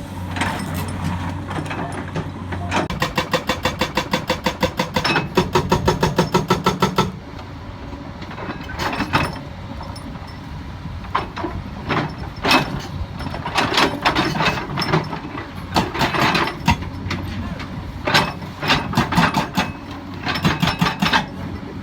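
Hydraulic breaker hammer on a Komatsu excavator pounding rock: a rapid, even run of blows, about seven a second, for about four seconds, then irregular clattering knocks of steel on rock, over the steady drone of the excavator's diesel engine.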